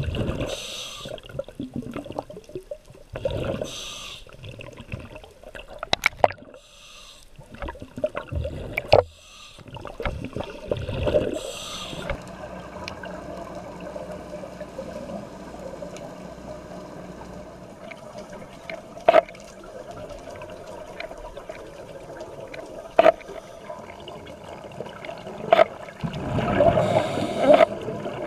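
Underwater sound heard through a GoPro housing: bursts of bubbling and gurgling from scuba divers' exhaled air, then a steady low hum of the water with a sharp single click every few seconds from a Sony NEX-5R camera's shutter.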